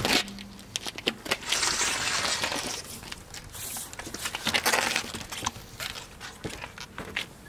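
Alloy wheel with its tire being handled and fitted onto the hub's studs and spacer: scattered light knocks and metal clinks, with a scraping rustle from about one and a half to three seconds in.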